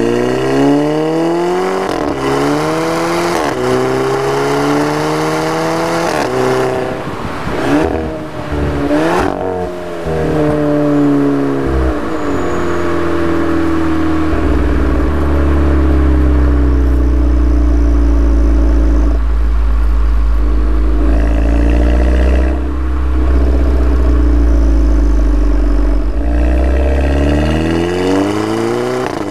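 VW Golf GTI MK6's turbocharged 2.0-litre four-cylinder through an APR RSC turboback exhaust, accelerating hard with the pitch climbing and dropping back at several quick DSG upshifts, each marked by a short exhaust burp, the 'DSG fart'. It then settles into steady cruising with a deep low rumble, and near the end climbs again under acceleration.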